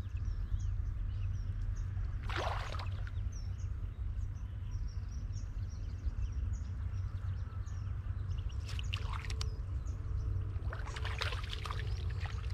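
Outdoor pondside ambience: a steady low rumble of wind on the microphone, with birds chirping faintly throughout and a few brief louder noises, the last just before the rod is struck.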